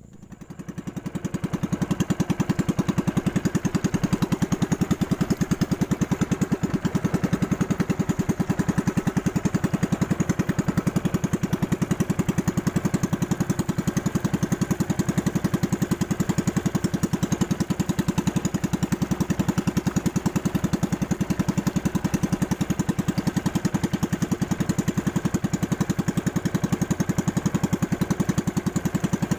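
Small boat engine running steadily with a rapid, even beat, pushing a narrow banca across the lake. It swells up over the first couple of seconds, then holds level.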